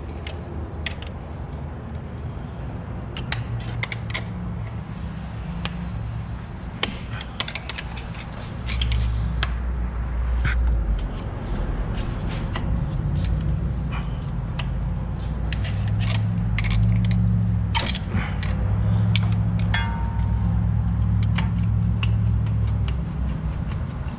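Screwdriver prying and scraping at a stuck brake caliper on a Chevrolet 2500HD, a run of sharp metal clicks and clinks as the caliper resists being pushed back. A low hum runs underneath and gets louder about a third of the way in.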